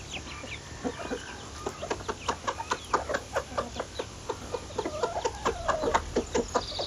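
Broiler chickens clucking, many short calls at about two to three a second.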